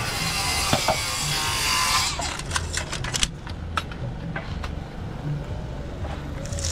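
Building-site work noise: a hissing roar for about two seconds, then a string of sharp knocks and clicks over a low rumble.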